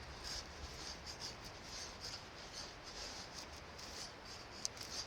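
Knife blade shaving a wooden stick into a feather stick for kindling, faint repeated scrapes about twice a second, with a short sharp click near the end.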